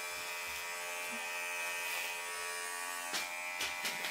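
Electric hair clippers buzzing steadily as they shave hair close to the scalp, with a few brief taps near the end.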